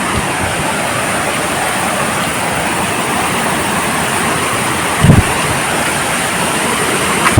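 Waterfall rushing: a loud, steady roar of falling water. Two short low thumps break in, about five seconds in and again at the very end.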